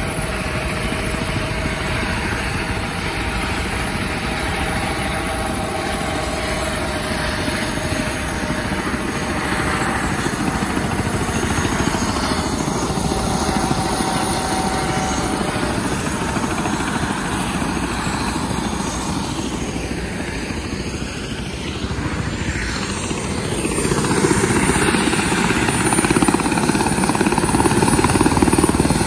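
Helicopter flying, a steady rotor and engine noise that grows louder over the last few seconds as it comes closer.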